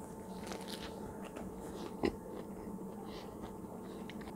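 A person biting into and chewing a tuna, cucumber and olive sandwich on soft bread: a few faint crunches, with a louder one about two seconds in, over a steady low hum.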